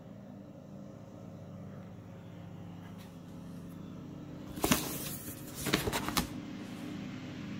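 A cardboard product box being handled and turned, with a few short rustles and knocks about two-thirds of the way through, over a steady low hum.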